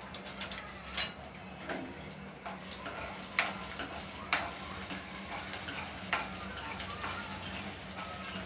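Metal spoon scraping and knocking against a coated kadhai in irregular clicks while stirring chopped ginger and garlic frying in a little oil, over a faint sizzle.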